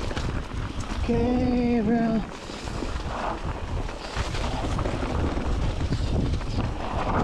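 Wind buffeting the microphone throughout, with a short held note, like a hum, a little after a second in that lasts about a second.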